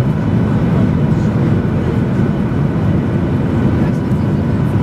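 Cabin noise inside a Boeing 737-800 on approach: a steady low rumble of the CFM56 engines and rushing airflow, with a faint thin hum above it.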